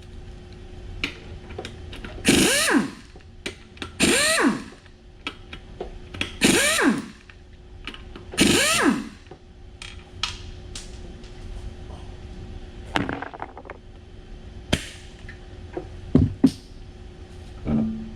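Impact wrench spinning off the wheel's lug nuts in four short bursts about two seconds apart, each swooping up and down in pitch. A few short knocks and clunks follow as the wheel comes off.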